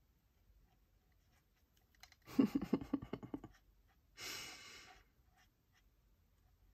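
Quick back-and-forth rubbing strokes of a pen or marker on paper over a desk, about seven a second for just over a second, followed by a short hiss like a breath out.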